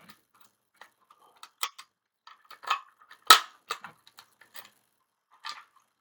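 Scattered clicks and clacks of a Simplex fire alarm pull station being reset with its key, the loudest clack about three seconds in.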